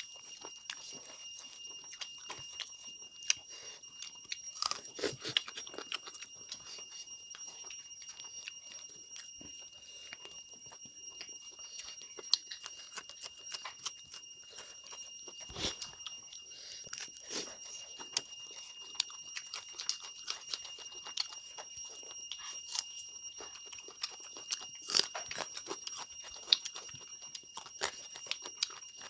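Close-miked chewing and crunching of smoked duck meat, with many short, sharp crunches and mouth clicks, over a steady high-pitched whine.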